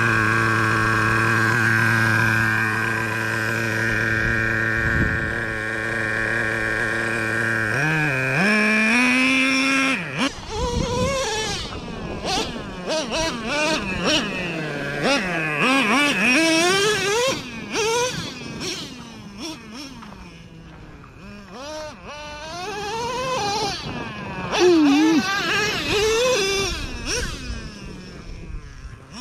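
Traxxas Revo 3.3 nitro RC truck's small two-stroke glow engine idling steadily, then revving up about eight seconds in and rising and falling rapidly in pitch with the throttle as the truck is driven over rough dirt.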